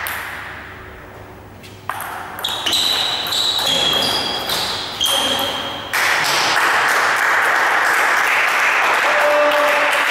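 Table tennis rally: the celluloid ball clicking off bats and table in quick succession, about two hits a second, each with a short ringing ping. The rally stops about six seconds in, and a loud steady rushing noise follows.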